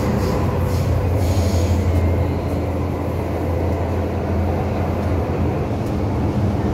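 MTR M-Train electric multiple unit running through a tunnel, heard from inside the car: a steady rumble of wheels and running gear over a low hum.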